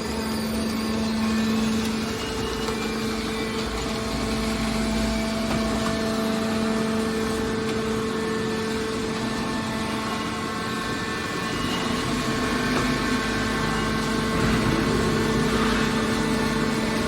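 Hydraulic car baler machinery running steadily, a constant hum with a few steady higher tones.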